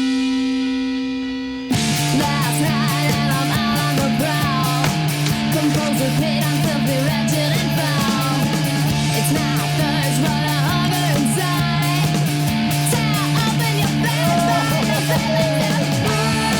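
Rock music with electric guitar: a held guitar chord fades for about a second and a half, then the full band cuts in suddenly and plays on with a steady bass line and bending lead guitar.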